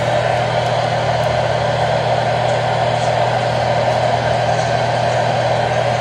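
Weather radio receiver's speaker giving out a steady, harsh, static-like noise with a low hum underneath.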